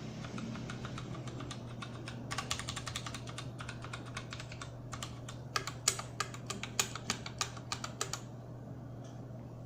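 Typing on an iKBC MF87 aluminium mechanical keyboard with unlubed Outemu Purple tactile switches and Carbon DSA PBT keycaps. The keystrokes come in quick runs starting about two seconds in, with a few louder strokes later, and stop near the end. A steady low hum runs underneath.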